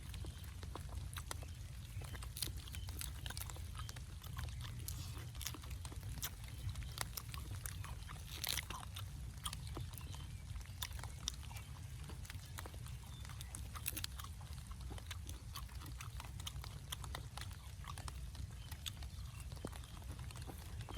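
A person chewing and eating food, making irregular clicks and smacks over a steady low rumble.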